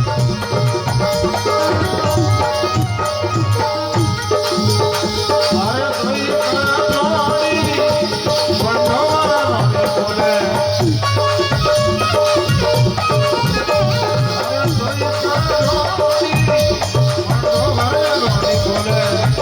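Rajasthani folk devotional bhajan music: a steady drum rhythm with a rattling percussion part and a wavering melody line over it.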